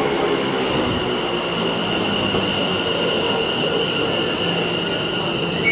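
Train moving through a station with a steady high-pitched squeal over the running noise, dropping a little in pitch near the end.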